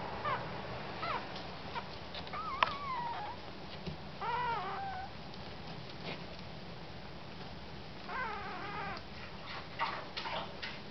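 Newborn puppies squeaking and whimpering: a few short high squeaks, then two longer wavering cries about four and eight seconds in, with light clicks between.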